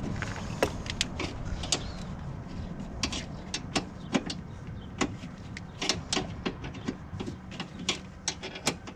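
Irregular metallic clicks, clinks and knocks of hand work on a side-by-side's emergency brake cable and its fittings as the cable is worked free, over a steady low hum. The clicks come more often in the second half.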